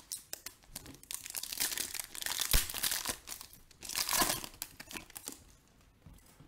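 Wrapper of a Panini Donruss Optic basketball card pack crinkling and tearing as it is ripped open by hand, with a sharp crack about two and a half seconds in and a last loud rustle about four seconds in.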